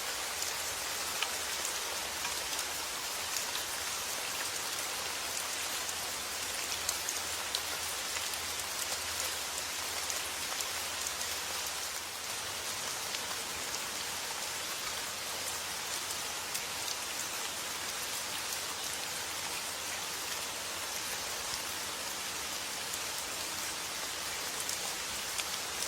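Steady summer rain falling, an even hiss with many small drop ticks, with a slight dip in level about twelve seconds in.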